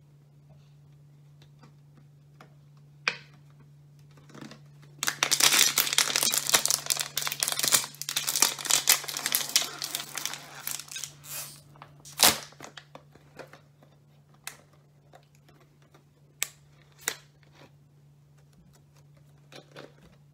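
Thin plastic water bottle crinkling and crackling as it is squeezed and twisted hard for several seconds to build pressure inside, followed by one loud sharp snap as the pressure is released.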